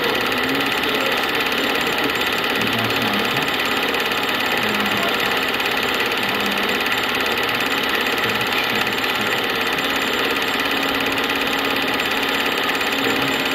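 Film projector running, a steady mechanical whirr that holds constant throughout.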